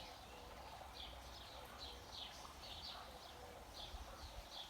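Garden birds singing: a run of short, high chirping notes repeated throughout, faint.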